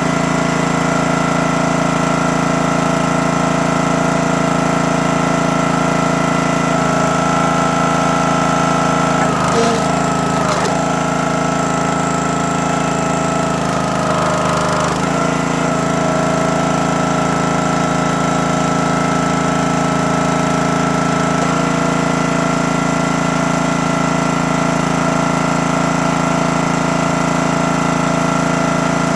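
The small gas engine of a CountyLine 28-ton log splitter running steadily, its note shifting a few times as the hydraulic ram works. A few short knocks or cracks come about ten seconds in and again near the middle.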